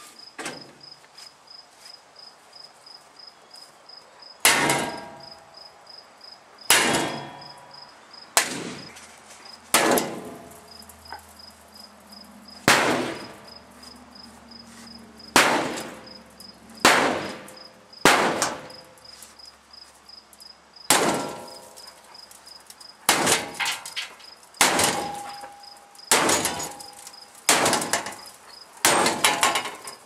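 Sledgehammer blows on the steel cabinet of a GE washing machine: over a dozen separate clanging strikes, starting about four seconds in and spaced one to three seconds apart, each with a short metallic ring. Crickets chirp steadily underneath.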